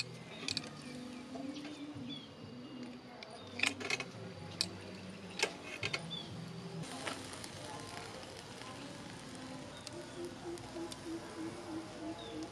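Charcoal grill under vegetable skewers: a handful of sharp crackles and pops from the burning coals, mostly in the first half, over a steady low background.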